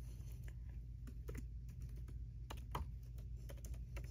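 Typing on a 14-inch MacBook Pro's built-in scissor-switch keyboard: a quick, irregular run of soft key clicks as a password is entered.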